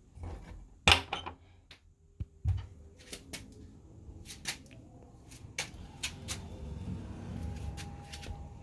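A door being opened: a sharp latch click about a second in, then scattered light clicks and a low steady rumble from about two and a half seconds in.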